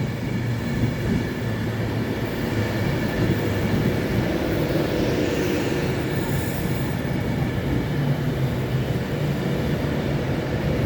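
Avanti West Coast Class 390 Pendolino electric train at the platform, a steady hum and rumble from its motors and on-board equipment.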